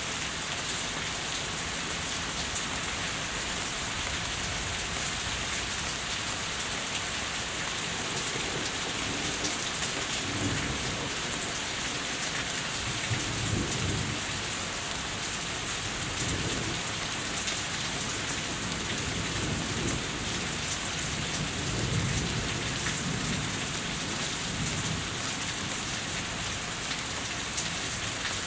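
Steady heavy rain falling and running off a house. Low thunder rumbles in rolling waves from about a third of the way in until near the end, swelling most strongly twice.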